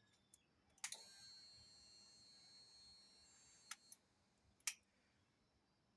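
Sharp clicks of motorcycle switches being worked, the first followed by a faint, steady high-pitched whine for nearly three seconds that stops at another click; a few more single clicks follow.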